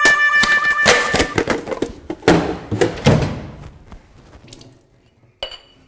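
A metal cookie tin being shut and handled: a quick run of clattering knocks and thuds over the first three seconds that dies away, then one sharp click near the end.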